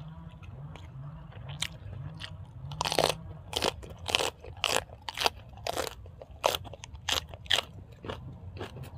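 Close-up chewing of crunchy food, loud crunches coming about twice a second as each mouthful is bitten and chewed.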